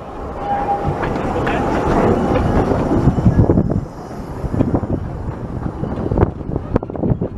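Miniature steam train on the 15-inch-gauge line running past, growing louder over the first three and a half seconds and then dropping suddenly. A run of sharp clicks follows.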